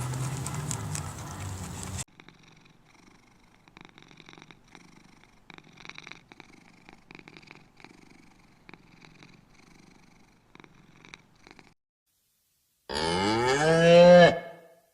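A cow mooing once near the end, a loud call of about a second and a half that bends in pitch. Before it there is a long faint stretch of soft, irregular clicks. A noisier sound cuts off about two seconds in.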